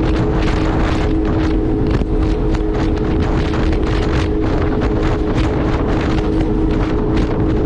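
Jet ski running at a steady speed, its engine giving a steady two-note whine, with heavy wind buffeting the microphone.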